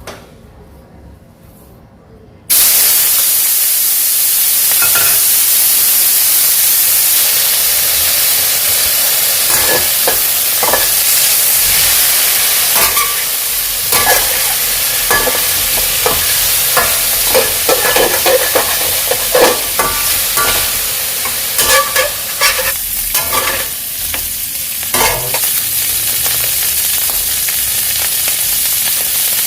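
Food dropped into a hot pan starts sizzling loudly about two and a half seconds in, with a steady frying hiss throughout. A spatula stirs and scrapes against the pan with repeated short clinks.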